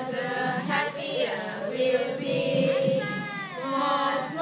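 Young children and women singing together as a group.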